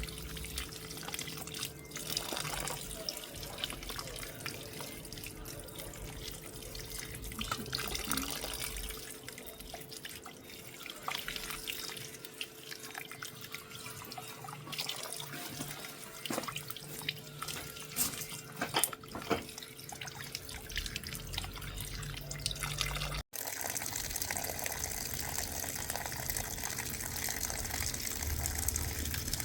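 Running tap water splashing in a sink, with scattered light knocks and drips, as sour wild plums are washed. The sound cuts out for a moment about 23 seconds in, then goes on more steadily.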